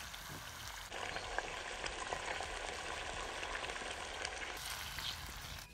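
Banga Mary fish frying in hot oil in a pot: a steady sizzle with small crackling pops, louder from about a second in.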